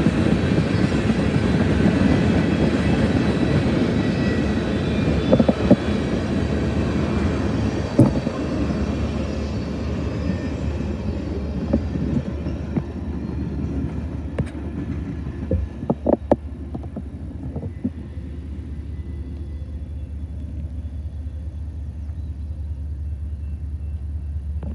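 Freight train of tank and hopper cars rolling past, wheels rumbling and hissing on the rails with a few sharp clanks, the sound gradually fading.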